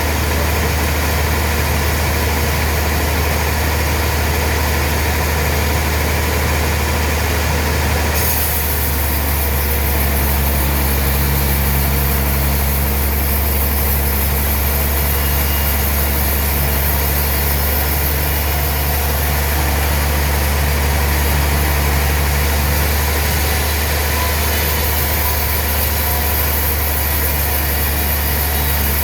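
Sawmill machinery running with a steady, loud low engine drone; the high-pitched hiss shifts about eight seconds in.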